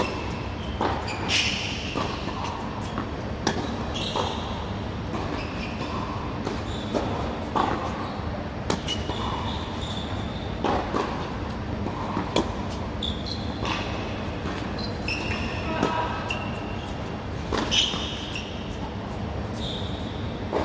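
Tennis ball being struck by rackets and bouncing on an indoor hard court: sharp pops every second or two, echoing in a large hall over a steady background hum.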